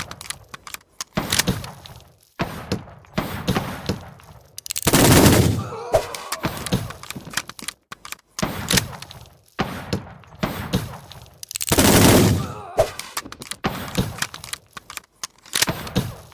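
Gunfight: a rapid, irregular exchange of gunshots, sharp cracks with echoing tails. Two longer, heavier blasts come about five seconds in and again about twelve seconds in.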